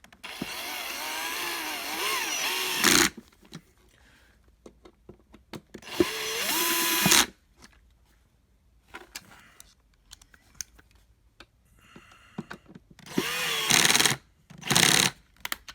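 Power drill running in four short bursts, its motor whine rising and falling in pitch as it drives screws into the vacuum cleaner's plastic housing. The first burst is the longest, about three seconds.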